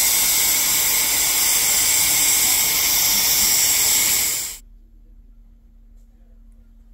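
Steam hissing loudly and steadily from a narrow-gauge forestry steam locomotive, cutting off abruptly about four and a half seconds in. After that only a faint steady hum remains.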